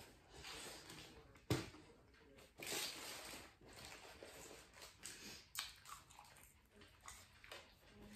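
Faint chewing and mouth sounds of a person eating a bacon burger and fries, with a sharp click about a second and a half in and a few fainter clicks later.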